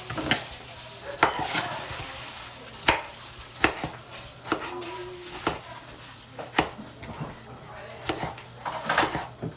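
Kitchen knife cutting a tomato on a wooden cutting board: irregular sharp taps, about one a second, as the blade goes through and strikes the board.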